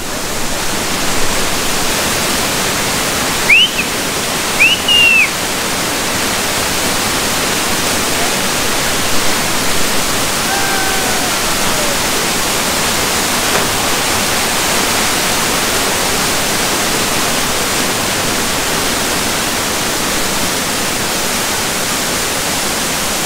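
Waterfall rushing steadily. There are two short high chirps about four and five seconds in, and a fainter falling call a little after ten seconds.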